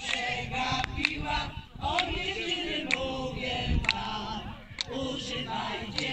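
A group of voices singing together unaccompanied, with a few sharp clicks along the way.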